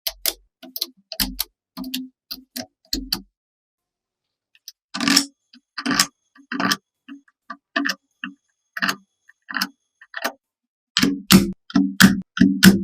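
Irregular sharp taps, clicks and knocks of small parts being handled and fitted together, with short silences between them; a denser run of heavier knocks comes near the end.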